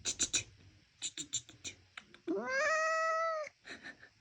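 Domestic cat giving one long meow that rises in pitch and then holds, about two seconds in. Before it, and once more near the end, come runs of quick sharp clicks.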